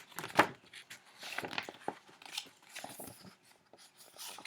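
Irregular rustling and clicking handling noises, with two sharper clicks about half a second apart at the start.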